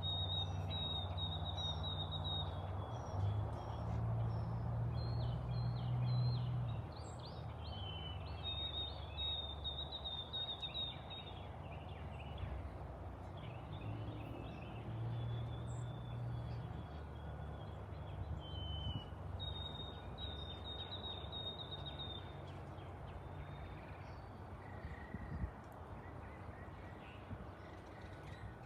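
Boeing 777 airliner's jet engines rumbling as it passes overhead. The rumble is loudest in the first several seconds and then slowly fades. Over it, a bird gives short high chirps and trills again and again.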